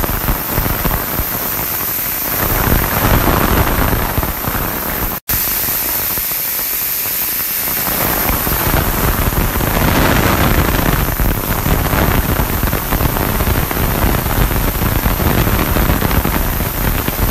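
Industrial ultrasonic cleaning tank running: a steady hiss of churning, cavitating water mixed with circulating water splashing back into the tank. The sound cuts out for an instant about five seconds in.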